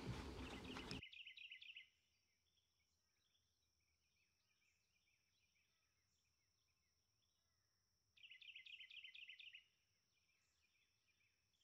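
Faint birdsong: two short phrases of rapid high chirps, one about a second in and one near eight seconds in, over a thin steady high note. Just before the first phrase, louder outdoor noise cuts off abruptly.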